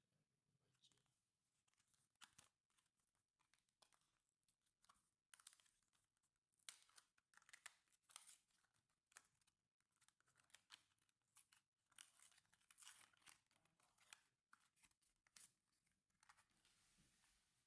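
Faint, irregular clicks and scraping of hands and small tools working on a laptop's plastic case and parts.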